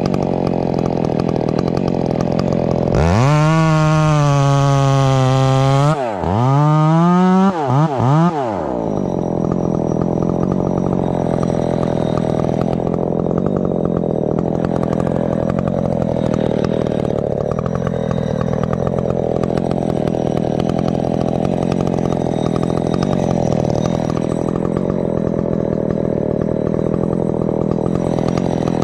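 Ported G372XP two-stroke chainsaw idling, then opened up to full throttle about three seconds in, its pitch dipping and recovering over about three seconds. It is blipped twice more and then settles back to a steady idle.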